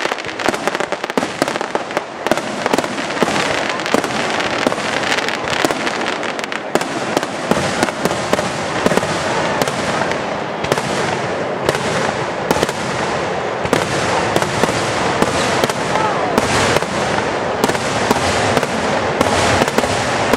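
Aerial firework shells bursting in quick succession, a continuous barrage of sharp bangs over dense crackling.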